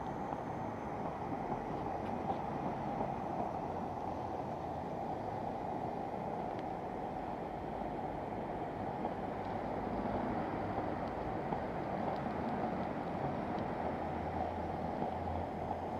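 Gauge 1 live steam locomotive giving off a steady hiss of steam, with a few faint light clicks.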